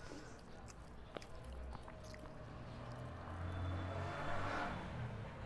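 Fingers mixing rice and curry in a steel bowl, with faint soft clicks. About three seconds in, a low hum swells and fades; it is the loudest sound.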